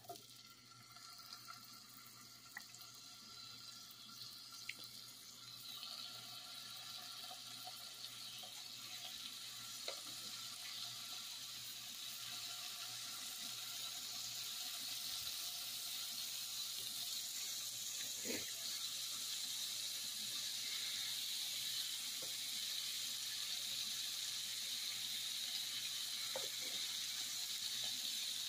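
Deer heart strips sizzling in butter in a frying pan, the sizzle building steadily louder as more strips go in. A few light clicks and taps sound as the pieces are laid in the pan.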